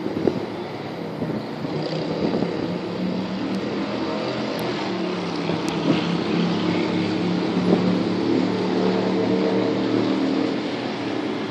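Yamaha V-Star 250's small air-cooled V-twin idling steadily, with wind noise on the microphone.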